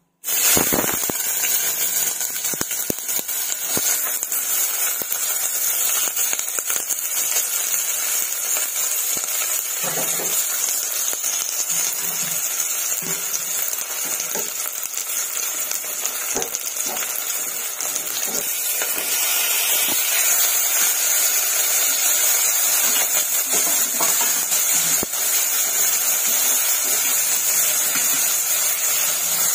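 Oil sizzling steadily in an aluminium pressure cooker as chopped onions and curry leaves fry, with scattered sharp crackles and knocks.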